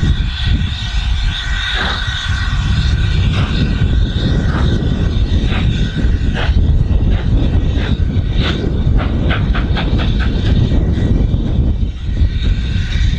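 Steam locomotive 70000 'Britannia', a two-cylinder BR Standard Pacific, working hard as it gets a train under way. Its exhaust beats quicken from about one a second to several a second, then fade near the end, over a steady low rumble.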